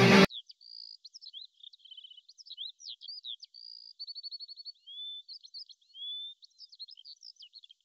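Music cuts off a moment in, leaving a songbird singing alone: a varied run of high chirps, quick trills and short rising whistles.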